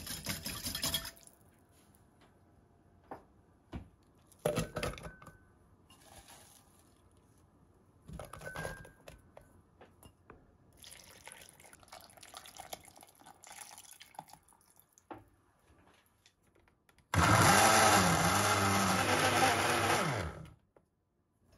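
Countertop blender running for about three seconds near the end, puréeing chunks of new onion and carrot with oil and vinegar into a smooth dressing, its pitch dipping and rising with the load before it cuts off abruptly. Before it, quiet scattered knocks and handling sounds.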